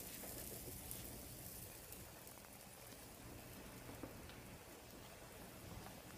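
Waffle batter sizzling faintly inside a closed cast-iron Griswold waffle iron over a gas flame, with scattered small pops as it cooks.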